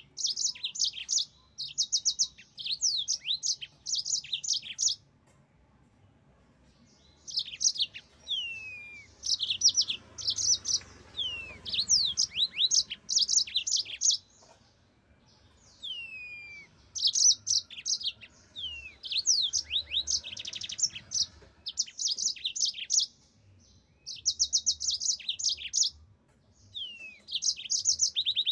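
Yellow-fronted canary singing in bursts of a second or two of very fast, high trilled notes mixed with quick down-slurred whistles, broken by a few short pauses.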